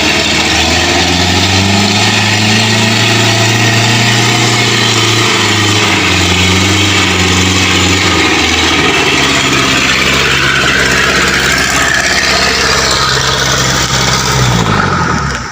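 A vehicle engine working hard through deep mud, held at high revs, then dropping to lower revs about eight seconds in and rising again near the end, over a steady hiss of churning noise.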